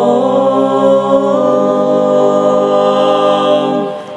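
Unaccompanied vocal harmony of a Malay nasyid holding its final chord. The chord shifts twice and then dies away near the end.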